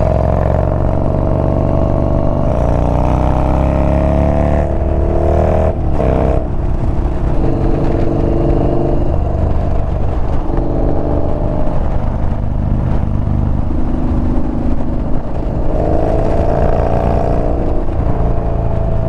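Yamaha Bolt's air-cooled V-twin engine running under way, rising in pitch as it accelerates for the first few seconds, then dropping and holding at a few different pitches through gear changes.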